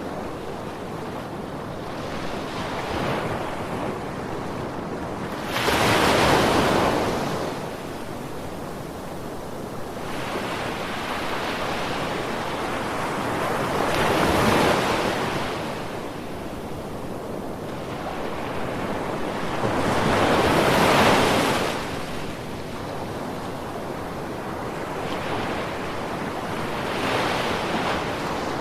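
Ocean waves breaking and washing in. Three big surges of surf come about seven seconds apart, with smaller swells between, over a steady wash of water.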